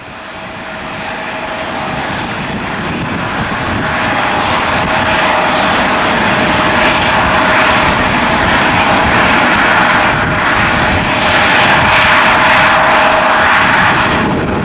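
Airliner's engines running loud: a broad rush with one steady whine through it, swelling over the first few seconds and then holding.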